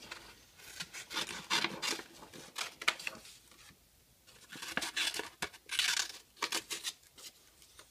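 Scissors cutting through dark green construction paper: a run of short snips in clusters, with a brief pause a little before halfway.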